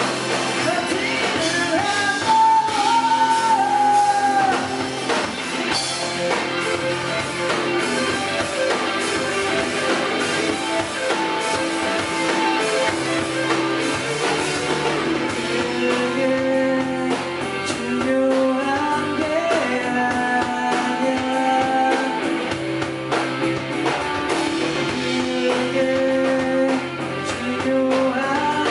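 Rock band playing live: electric guitars and drum kit, with a voice singing at times.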